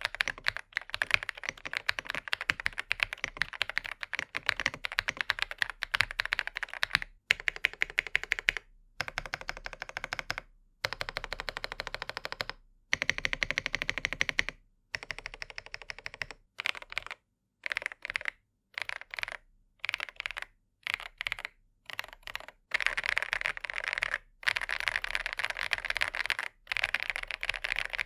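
Typing on a Feker IK85 Plus gasket-mounted mechanical keyboard, a clacky, full keystroke sound. Fast continuous typing at first, then short bursts of keystrokes with brief pauses between them through the middle, then steady fast typing again from a little past two-thirds of the way.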